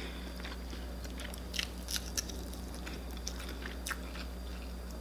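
A person chewing a mouthful of fried vegan chicken, with scattered short, soft clicks and smacks from the mouth and food. A steady low hum runs underneath.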